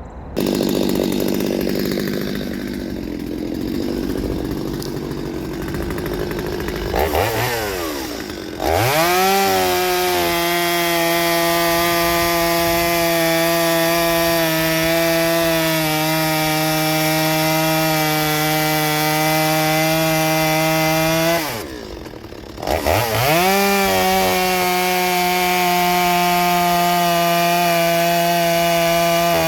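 Stihl 023C two-stroke chainsaw running at high revs while cutting wood. The engine note holds steady for long stretches, falls off and climbs back early on and again about two-thirds of the way through.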